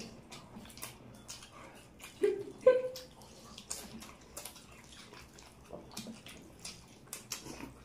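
Close-up eating sounds: fingers squishing chicken drumsticks in thick curry gravy, with wet smacking and chewing clicks throughout. Two short vocal sounds from an eater come a little over two seconds in.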